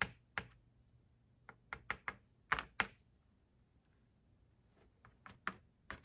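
Irregular light taps and clicks of a foam sponge brush dabbing paint onto thin birch wood cutout panels lying in an aluminium foil tray, with a hand shifting the panel. There are a dozen or so short sharp taps, bunched in the first three seconds and again near the end.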